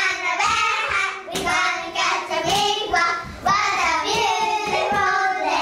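A group of young children singing a rhythmic song together in short phrases, with hand claps in the mix.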